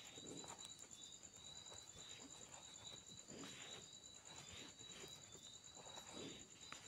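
Near silence, with a faint steady high-pitched pulsing trill like an insect's and soft rustling of yarn and needles being worked.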